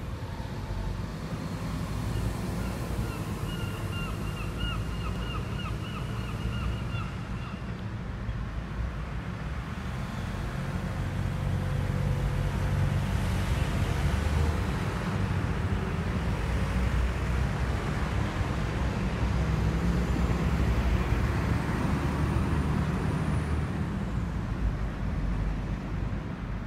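Outdoor ambience of wind rumbling on the microphone over steady distant road traffic. A thin warbling tone sounds for about five seconds near the start.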